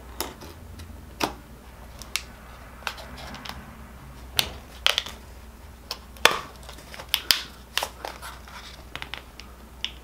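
Plastic blister packaging being cut and pried open by hand: irregular sharp clicks, snaps and scratches of stiff plastic and card, the louder snaps about a second in and between about four and seven seconds in.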